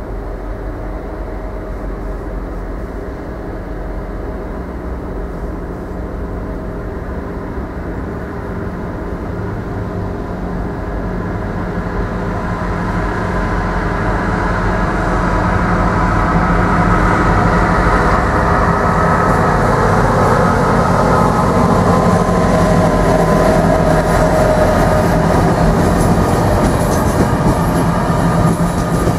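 Electric locomotive hauling a passenger train, approaching and passing: a steady hum and rumble that grows louder over the first half, then the coaches rolling past on the track.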